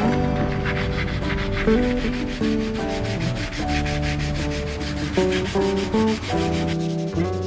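Hand sanding: a sheet of sandpaper rubbed in quick, even strokes over the metal bracket of a motorcycle rear carrier, roughing it up for spray paint. Background music with sustained, stepping notes plays under it.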